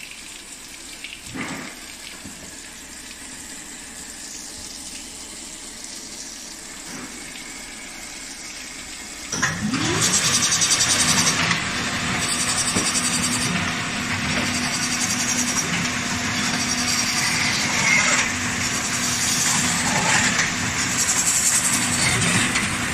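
Baader 189 fish filleting machine: a quiet hiss of running water, then about nine seconds in the machine starts up with a rising whine. It then runs loudly and steadily with a constant hum and rattling, its conveyor and blades working as cod are filleted.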